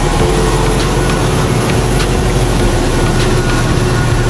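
Engine of a heavily loaded Fiat TM69 6x6 truck running under load as the truck crawls through a muddy, water-filled track: a steady low rumble.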